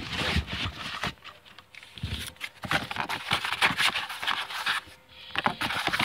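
Cardboard rustling and scraping as hands handle a corrugated shipping box and the boxed model kits inside it, with small knocks among the rustle. It comes in bursts, easing off about a second in and again near five seconds.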